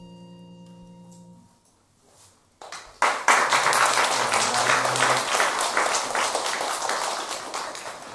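The last ringing note of a piece fades away over about a second and a half, then after a brief silence an audience starts applauding about three seconds in, the clapping slowly thinning near the end.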